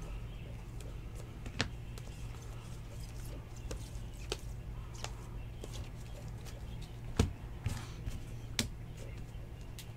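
Rigid plastic top-loader card holders clicking against each other and against the table as a stack of cards is handled and set down: a few sharp, separate clicks, the loudest about seven seconds in, over a steady low hum.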